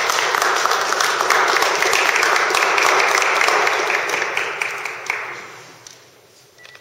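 Audience applause, many people clapping together, holding steady and then dying away about five seconds in.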